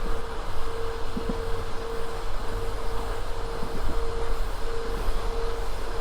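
Passenger train running along the line: a steady rumble of wheels on rails with a constant hum and a few faint knocks.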